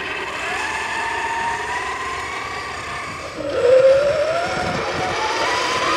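Electric motor and gear whine of RC scale crawler trucks, a steady tone that rises slowly in pitch. About three and a half seconds in, a louder whine joins and climbs.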